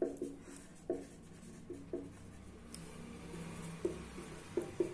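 Marker pen writing on paper: a series of short, separate strokes as words are written out.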